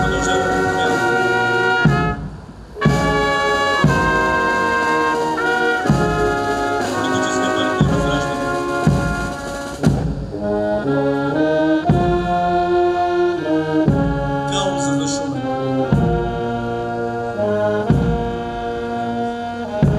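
Brass band playing a slow piece in long held chords, with a brief break between phrases about two seconds in.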